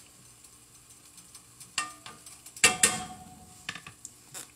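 A utensil knocking and scraping in a skillet as browning ground turkey is stirred: a few sharp knocks, some with a brief metallic ring, the loudest about two and a half seconds in.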